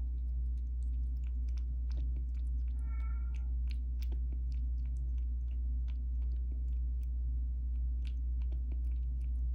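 Kitten lapping water from a glass bowl: a run of small wet clicks, with one short high mew about three seconds in, over a steady low hum.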